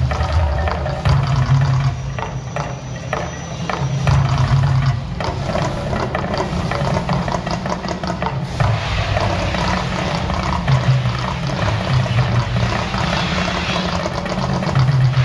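The Mirage volcano show erupting: a continuous rush of water and fire jets over the show's loud music, with low rumbling pulses from the sound system.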